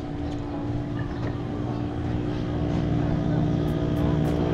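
Camera drone's propellers giving a steady, even buzz as it flies.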